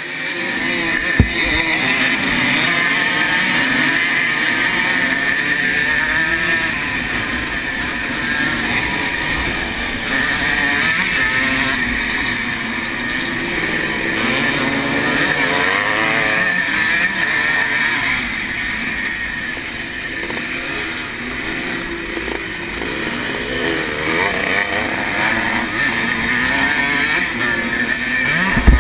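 1980 Honda CR125R's 125 cc two-stroke single-cylinder engine revving hard and pulling off the start, its pitch rising and falling as it accelerates, with other motocross bikes running around it. A sharp knock about a second in, and another near the end.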